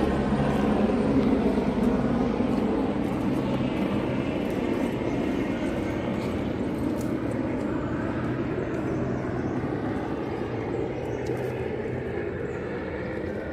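Helicopter passing overhead, a steady engine and rotor drone that is loudest at first and slowly fades away.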